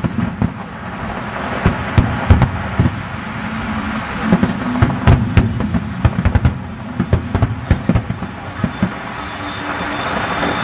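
Fireworks going off: irregular sharp bangs and pops, some in quick clusters, over a steady background din.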